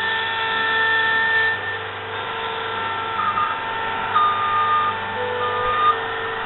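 Compact diesel construction machine running steadily with several high whining tones from its engine and hydraulics. About four seconds in, its reversing alarm starts beeping, roughly one beep every second and a quarter.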